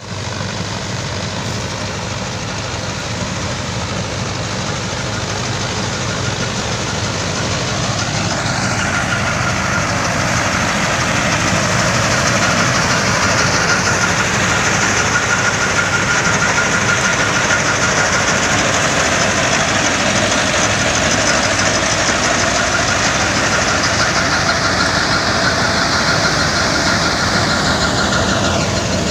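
Mahindra 585 Yuvo Tech Plus tractor powering a Balkar B-525 tractor-mounted combine harvester as it cuts and threshes ripe paddy: a steady, loud drone of engine and harvesting machinery that grows louder over the first dozen seconds.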